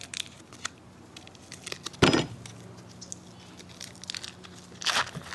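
Foil wrapper of a block of cream cheese crinkling in small scattered crackles as it is peeled open by hand, with one loud thump about two seconds in.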